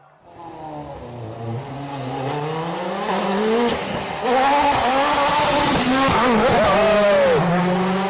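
Rally car engine approaching at speed, growing steadily louder over the first few seconds, its note rising and falling as it is revved and lifted off, with a sharp drop in pitch near the end.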